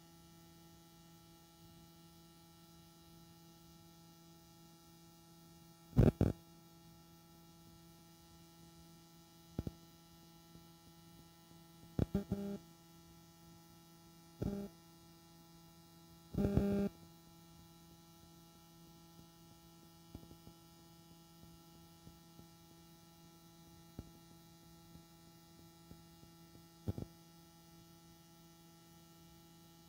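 Steady electrical hum from a recording whose sound has failed, broken by about six short, loud buzzing crackles. The loudest crackle comes about six seconds in, and a cluster follows between twelve and seventeen seconds.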